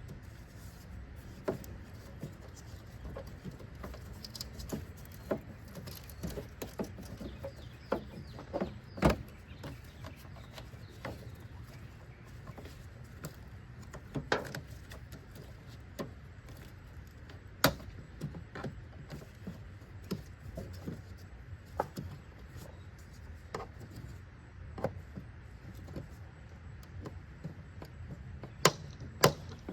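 Irregular clicks, taps and knocks of hand work on plastic trim and push clips around a car's headlight, with a few sharper knocks standing out.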